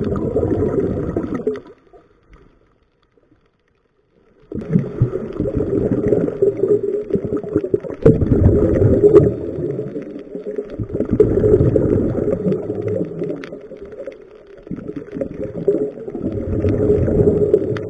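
Muffled underwater gurgling and rumbling of bubbles and moving water, heard through a waterproof camera housing, swelling and fading every few seconds. It drops out to near silence about two seconds in and comes back two and a half seconds later.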